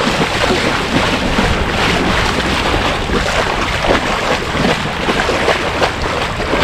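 Legs wading through shallow seawater, splashing with each stride, over a steady rush of wind buffeting the microphone.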